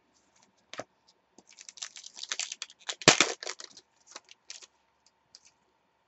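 Foil trading card pack being torn open and crinkled by hand: a dense run of crackles over about two seconds, loudest about three seconds in, then a few light rustles and clicks as the cards are handled.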